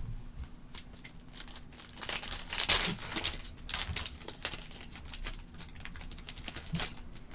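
A foil trading-card pack being torn open and its wrapper crinkled, loudest for about a second a little past two seconds in, with short crackles and clicks as it is handled.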